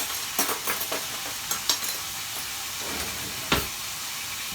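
Scallion, garlic and hot pepper sauce sizzling steadily in a hot pot, with a metal spoon clicking and scraping against it several times and one louder knock about three and a half seconds in.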